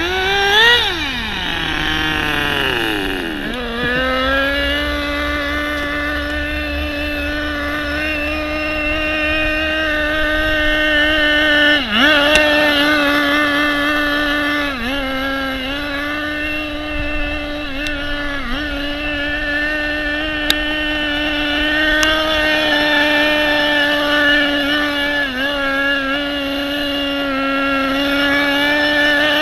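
Tamiya TG10 Mk.1 radio-controlled car's small single-cylinder two-stroke glow engine running at high revs with a steady buzzing whine. The revs fall over the first few seconds, then hold steady, with short dips about twelve, fifteen and eighteen seconds in.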